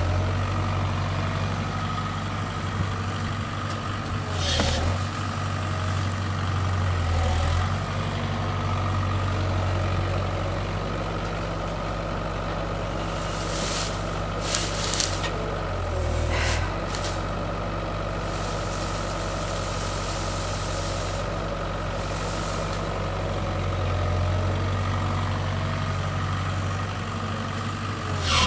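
Bobcat E42 compact excavator's diesel engine running steadily while the machine works, its low note swelling several times, with a steady higher whine above it. A few brief knocks and scrapes come from the bucket and thumb working at the logs and brush.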